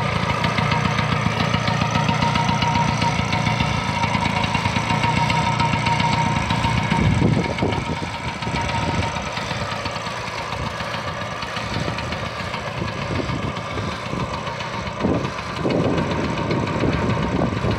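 1956 Vespa Faro Basso's freshly rebuilt single-cylinder two-stroke engine running on the stand, settling to a lower, quieter idle about seven seconds in, with a couple of short blips of the throttle near the end.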